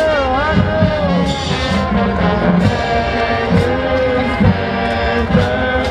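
Marching band brass section playing a slow tune, loud and full, the horns swooping in wide wavering bends at first and then holding long notes, with scattered drum and cymbal hits.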